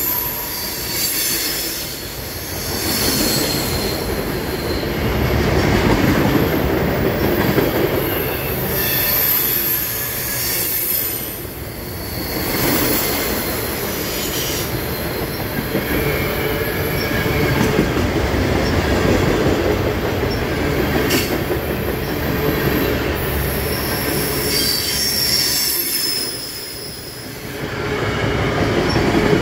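Freight train passing close by: a steady heavy rumble of rolling cars, with high-pitched wheel squeal rising and fading several times.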